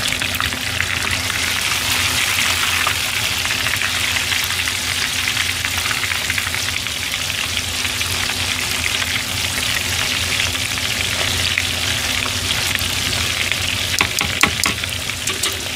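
Chicken karaage deep-frying in a pot of oil: a steady, dense crackling sizzle. A wire strainer stirs the pieces through the oil, and there are a few sharper clicks near the end.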